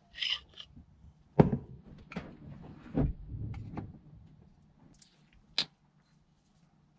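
Kitchen handling sounds: a metal spoon scraping and clinking in a glass jar of thick honey, and knocks of glass set down on a wooden counter, the loudest about a second and a half in and again about three seconds in. A single sharp clink comes later.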